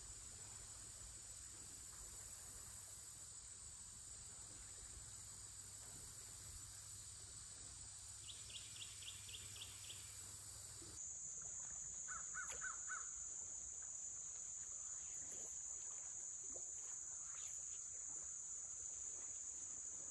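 Steady high-pitched drone of insects, likely crickets, with a short run of quick bird calls about eight seconds in and a few more calls around twelve seconds in.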